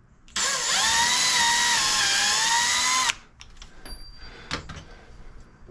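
Power drill run in one burst of a little under three seconds: a steady motor whine that dips slightly in pitch under load, then stops abruptly. A few light clicks follow.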